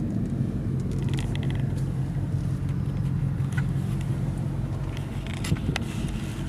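Car engine and road noise making a steady low drone, with a couple of light clicks about five and a half seconds in.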